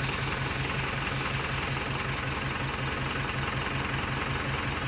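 An engine idling steadily with an even, rapid throb of about five pulses a second.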